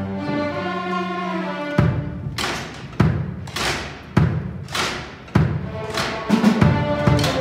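A school string orchestra holds sustained chords, then about two seconds in a drum kit comes in with heavy, evenly spaced hits about every 0.6 seconds, each with a cymbal-like splash over the strings.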